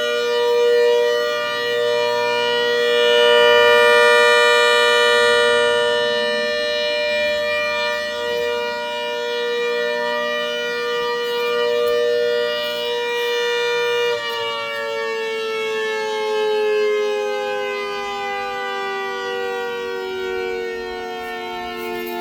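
Mini Hurricane 130 siren sounding a steady chord of several tones; about two-thirds of the way through, its pitch starts to fall slowly and keeps falling.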